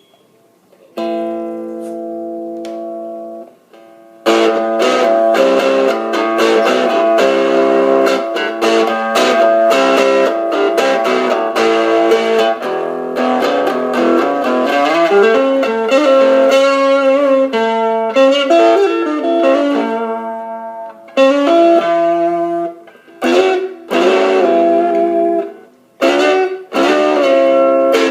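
Electric guitar played through a small solid-state practice amp with a 4-inch speaker, gain/distortion turned up. A chord rings out about a second in, then a stretch of continuous playing, ending in short chopped chords with brief gaps between them.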